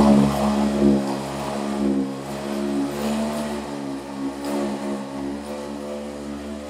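Steady motor hum, its pitch wavering slightly, growing gradually quieter.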